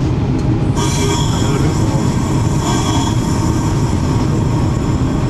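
Class 52 'Western' diesel-hydraulic locomotive's twin Maybach engines running with a steady low drone, joined about a second in by high-pitched wheel flange squeal as the train takes a curve.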